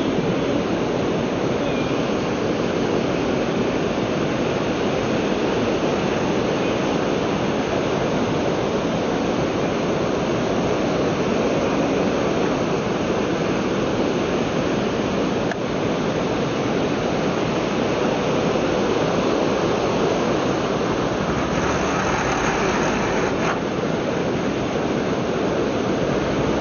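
Ocean surf breaking and washing up the shore: a steady, even rush of water.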